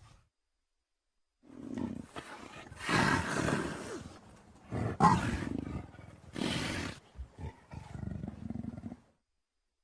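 Dromaeosaurus creature sound effect: a series of harsh roaring calls, the loudest starting sharply about halfway through, with lower rumbling growls that die away near the end.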